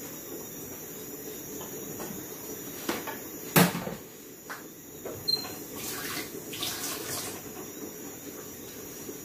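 Off-camera kitchen handling sounds: several knocks and clatters, the loudest about three and a half seconds in, then a second or so of brief rushing, rustling noise, over a steady background hiss.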